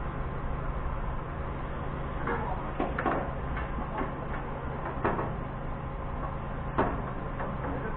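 Forklift engine idling with a steady low hum, under a few sharp knocks about three, five and seven seconds in as the car-lift parts are worked on by hand.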